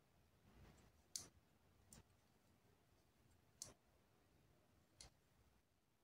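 Near silence broken by four faint, sharp clicks of a metal-shafted crochet hook against long fingernails as single crochet stitches are worked.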